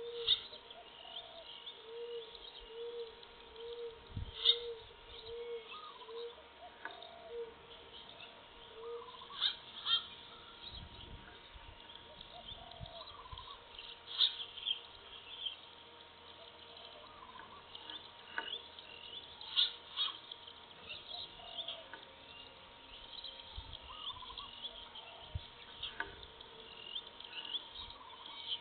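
Forest birds calling: many short high chirps and whistles throughout, and in the first nine seconds a low hooting call repeated about a dozen times at an even pace.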